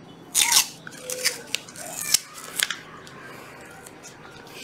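Hands handling a plastic cordless power tool: about six short, crisp scrapes and clicks in the first three seconds, then quieter rubbing.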